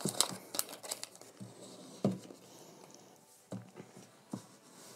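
Handling sounds of a laptop being lifted out of its cardboard box: a few light knocks and rustles of the packaging, the sharpest about two seconds in.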